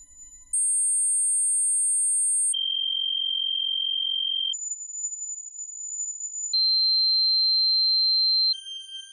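Tinnitus sound effects: a series of steady, high-pitched ringing tones, each lasting about two seconds before jumping to a new pitch. The pitch goes up, then down, then up again, and a few of the tones are doubled or carry fainter overtones.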